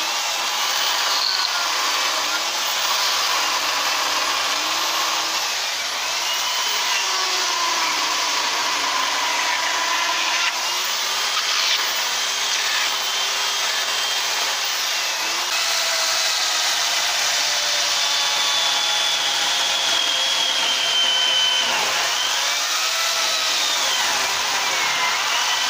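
Corded electric chainsaw running and cutting into a wooden carving block, its motor whine dipping and rising in pitch as the chain bites into the wood and eases off.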